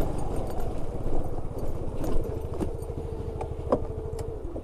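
Yamaha Fascino scooter's engine running at low speed, its steady hum easing off near the end as the scooter rolls to a stop. A few sharp clicks and rattles sound over it.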